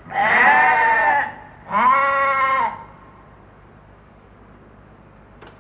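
Sheep bleating twice: two drawn-out 'baa' calls of about a second each, the first slightly wavering, the second starting just under two seconds in.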